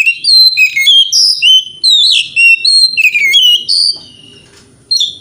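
Oriental magpie-robin (kacer) singing a rapid run of loud, varied whistled notes with quick slurs up and down, breaking off about four seconds in before one more short note near the end.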